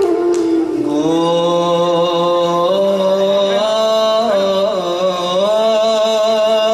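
Male voice singing a Borgeet in Rag Ahir, drawing out long held notes that glide and waver slowly between pitches, over a steady drone.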